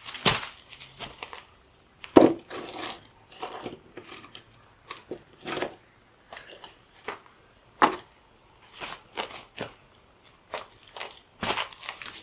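Stones being set down one by one to build a fire ring, with irregular sharp knocks of rock on rock and footsteps crunching on dry leaf litter and grit. The loudest knock comes about two seconds in.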